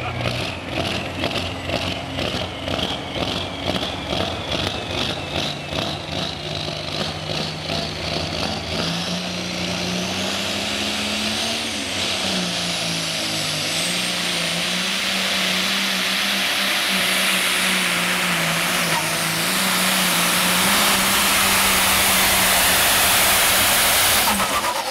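Turbocharged super stock pulling tractor engine revving in pulses at the line with a rising turbo whine, then held at full throttle on the pull, growing louder as it goes before dropping off abruptly at the very end.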